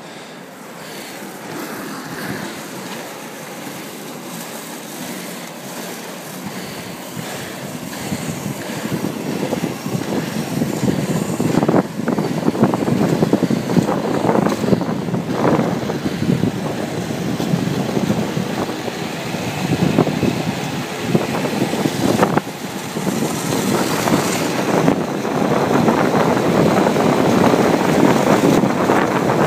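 Wind rushing over a phone's microphone with the rumble of inline skate wheels rolling on asphalt, getting steadily louder as the skater picks up speed downhill.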